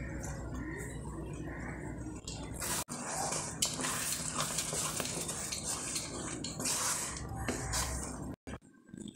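A spatula stirring thick dal fry with fresh cream in a metal kadai: wet squelching and the spatula scraping the pan, starting about three seconds in and stopping shortly before the end. A steady low hum runs under the first few seconds.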